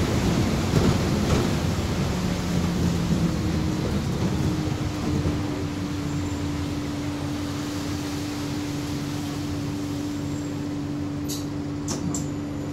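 Interior noise of an Alexander Dennis Enviro400 hybrid double-decker bus on the move: drivetrain and road noise on a wet road, louder for the first few seconds, then easing to a steady hum. A few faint clicks near the end.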